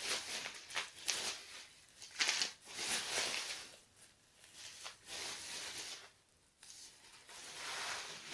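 Paper and plastic packaging of a CD album rustling in irregular bursts as it is handled and opened, with a brief pause about six seconds in.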